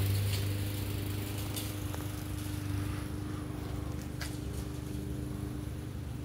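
A steady engine hum from an unseen motor, with a few faint clicks over it.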